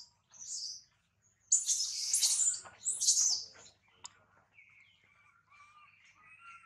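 Monkeys' shrill, high-pitched squealing cries in three short bouts, the loudest from about one and a half to three and a half seconds in, followed by fainter thin calls.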